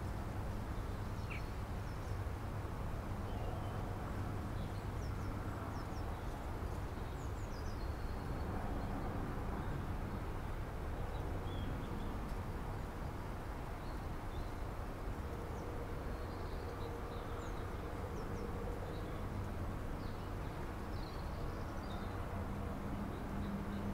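Outdoor ambience: a steady low hum and rumble, with faint, scattered short high chirps throughout.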